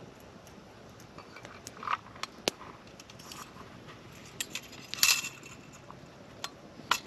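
Small metal clicks and clinks from a candle lantern being handled and its glass chimney slid into place, a few at a time with the loudest about five seconds in, over the faint crackle of a campfire.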